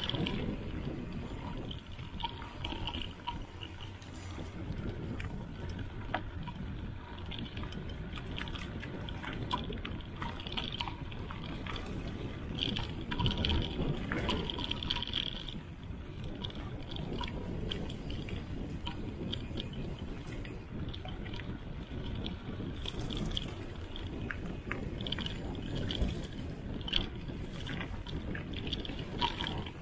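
Mountain bike rolling fast down a dry dirt singletrack: a steady rumble of tyres on loose dirt and leaves, with frequent small clicks and rattles from the bike over bumps.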